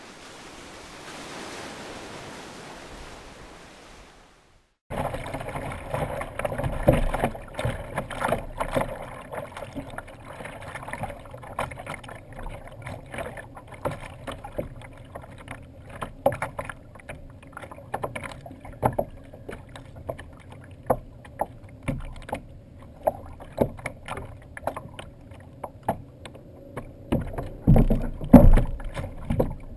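About four seconds of soft, steady surf-like noise, then choppy water slapping and knocking irregularly against a plastic kayak hull close by, with a heavier burst of knocks near the end.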